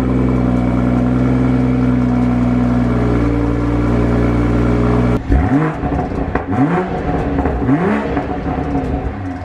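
2021 Toyota Supra 3.0's turbocharged inline-six on its exhaust, holding a steady fast idle just after a cold start. About five seconds in it changes to a few short revs to around 2000 RPM, each rising and falling about a second apart, with factory exhaust burbles.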